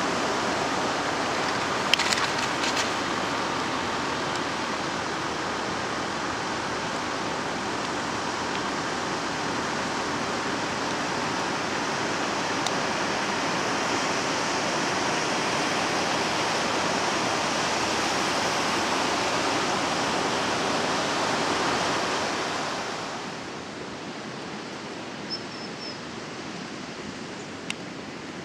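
Ocean surf breaking steadily on a sandy beach, a constant rushing noise, with a few small clicks about two seconds in. About three-quarters of the way through it falls away to a quieter outdoor hiss.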